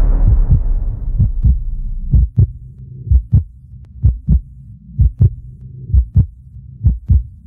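Heartbeat sound effect: low double thumps, lub-dub, about one pair a second. They come out of a loud noise swell that fades away over the first two seconds.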